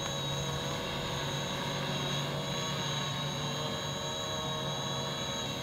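A steady engine-like drone with several constant hum tones, holding an even level and pitch throughout.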